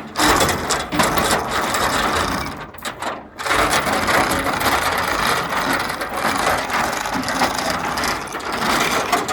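A ratchet strap's ratchet being worked, a fast run of clicking that stops briefly about three seconds in and then goes on.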